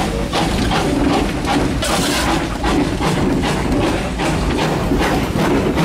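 NZR K-class steam locomotive K 88 working under way, its exhaust beating in a steady rhythm of about four to five chuffs a second, heard from inside the cab over the clank of the running gear.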